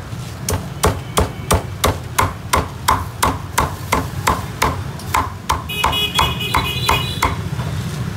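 Meat cleaver chopping through a slab of crisp-skinned Vietnamese roast pork (heo quay) onto a round wooden chopping block: a steady run of sharp chops, about three a second.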